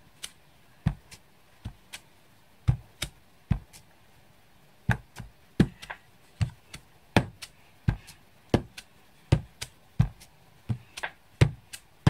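Clear acrylic stamp block with a weave background stamp tapped onto an ink pad and pressed onto card, over and over: a string of short, sharp knocks, inking and stamping in turn to build up a textured background. The knocks come a few at a time at first, then fall into a steadier rhythm of about two a second after a short pause about four seconds in.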